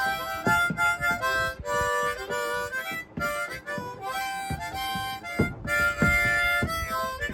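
Harmonica music: a harmonica plays a melody in short held notes over a backing track, with a few sharp knocks among the notes.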